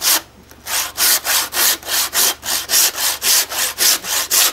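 A hand saw cutting lengthwise through a pig carcass, splitting it down the middle through meat and bone, in quick rasping back-and-forth strokes at about four a second. The strokes pause briefly just after the start.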